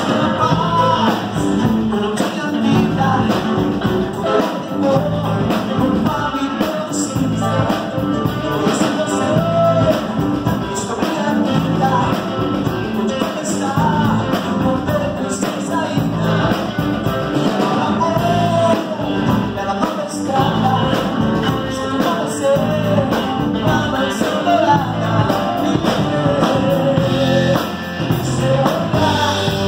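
Live church band playing an upbeat rock-style worship song: electric guitar, bass guitar, keyboard and drum kit with cymbals, and a man singing into a handheld microphone at times.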